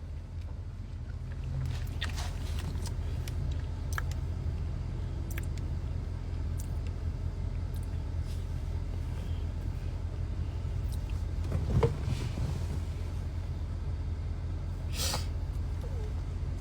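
Steady low rumble of a car on the move, with scattered light clicks and a single louder knock about twelve seconds in.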